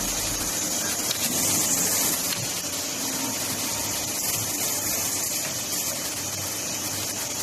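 A four-axis CNC machine for cutting pre-insulated duct panels, running with a steady, high hiss over a low rumble.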